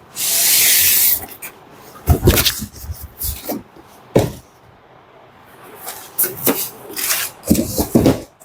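Unboxing noises from a sewing machine's cardboard box and packing: a loud hissing scrape for about a second at the start, then scattered knocks and rubbing as the packing is handled.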